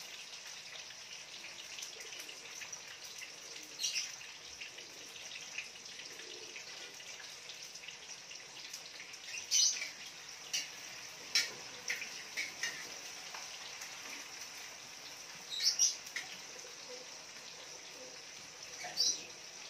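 Cooking at a wok on a lit gas stove: a steady high hiss, with a handful of short sharp clinks and scrapes of a metal spatula and utensils, the loudest about halfway through and near the end.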